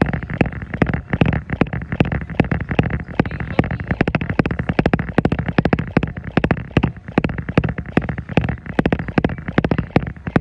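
Running shoes pounding a treadmill deck at a steady jogging pace, about three footfalls a second, over the continuous low hum of the moving belt.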